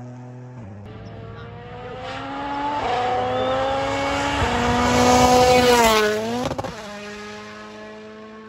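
Rally car coming flat out, its engine pitch climbing through several upshifts, loudest about five to six seconds in, then a quick drop in pitch as it goes by and fades. A steady droning tone sits under it at the start and again near the end.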